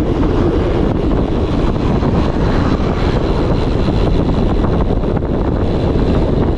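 Steady wind noise buffeting the microphone of a camera on a road bike moving at speed along a paved road.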